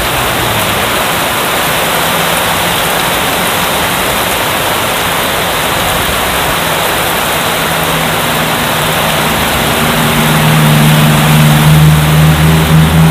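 Heavy rain pouring steadily, driven by strong wind. About ten seconds in, a low droning hum comes in under the rain and grows louder.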